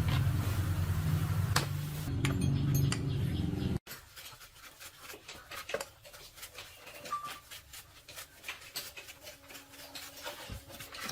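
Small single-cylinder motorcycle engine running steadily, stopping abruptly about four seconds in. After that come many light metallic clinks and clicks of tools and small engine parts being handled.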